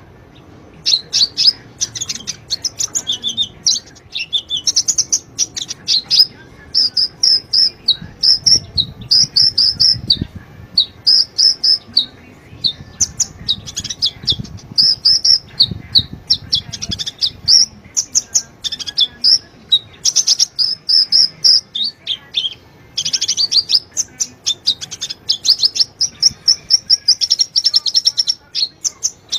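Sunbird song: a fast, high stream of sharp chirps and trills, almost without pause. It is played as a lure song to set caged sunbirds singing.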